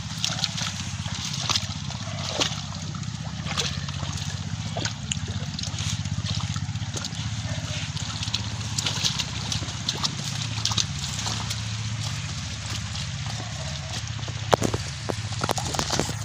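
A dog wading through a muddy pond choked with water hyacinth: water sloshing and trickling around it, with many small clicks and snaps from the plants, sharpest near the end. A steady low hum runs underneath.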